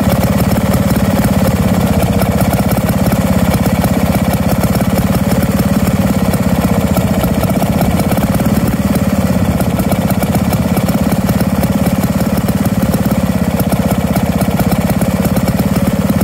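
Lister two-stroke stationary engine running steadily with a rapid, even firing beat.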